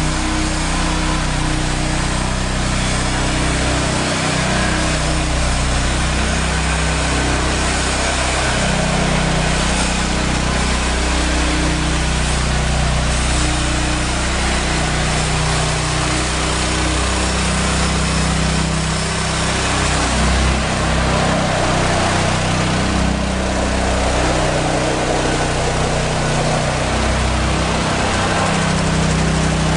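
Heavy machinery running continuously: a motor's low hum shifting slightly in pitch under a loud, steady rushing noise.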